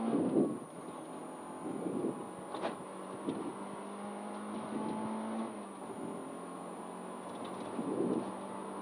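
Rally car's engine heard inside the stripped cabin, running at steady revs along a straight, with a brief drop in pitch about five and a half seconds in. A light knock comes about two and a half seconds in.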